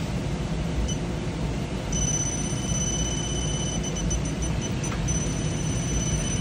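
Electronic refrigerant leak detector giving short high beeps, then a steady high alarm tone from about two seconds in, which breaks back into beeps briefly and goes steady again near the end. The alarm means the probe is picking up refrigerant leaking from the evaporator coil. A steady low background noise runs underneath.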